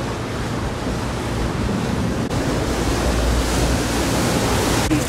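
Steady rush of water along a moving boat's hull, with wind buffeting the microphone.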